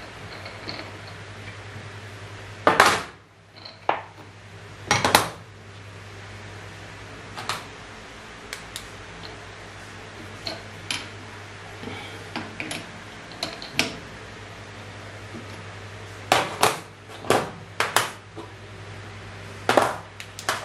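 Metal tools and parts clinking and clanking against a small metal lathe as they are handled and set down: scattered sharp knocks, the loudest about 3 and 5 seconds in and a quick run of them near the end, over a low steady hum.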